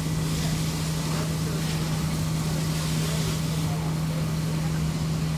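An engine running steadily, a constant low drone with a light hiss over it.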